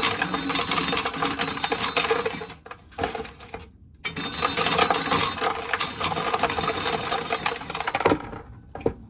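Dried corn kernels being shelled off the cob and rattling into a container, a dense clinking patter in two long stretches with a short break between. A few separate clicks near the end.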